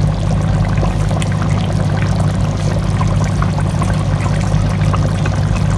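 Pot of chicken biryani, raw rice in the sauce, boiling and bubbling, over a steady low hum.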